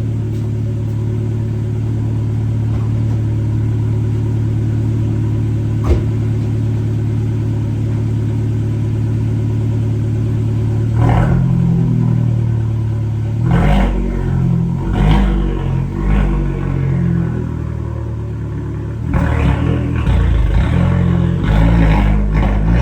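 Car engine idling steadily, with one sharp click about six seconds in. From about eleven seconds in, the engine note turns uneven, surging and falling back repeatedly under throttle.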